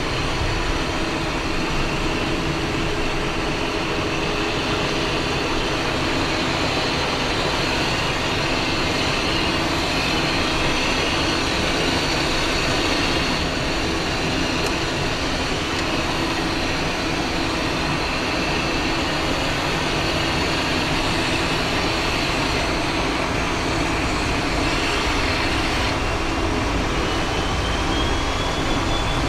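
Cessna Citation XLS's twin Pratt & Whitney PW545 turbofans heard inside the cockpit, running steadily at low power with a high whine over a hum. Near the end the whine rises in pitch as thrust comes up for the takeoff roll.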